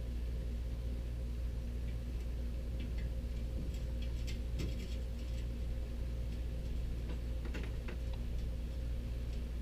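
An engine running at a steady speed, its low hum even throughout, with scattered light ticks and clicks, a cluster a few seconds in and another near the end.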